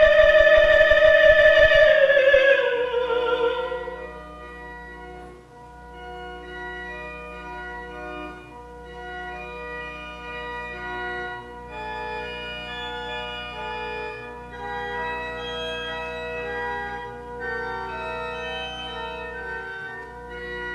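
A woman's solo singing voice holds a long note with vibrato, falling in pitch as it ends about three seconds in. Then an organ plays a quieter interlude of sustained chords over a steady low pedal note.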